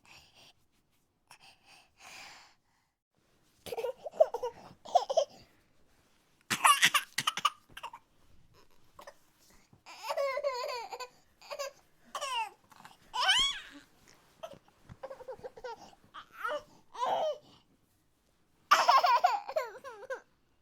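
Nonverbal vocal sound effect: short fits of high-pitched, laugh-like voice with wavering pitch, broken by brief pauses, each fit lasting about a second.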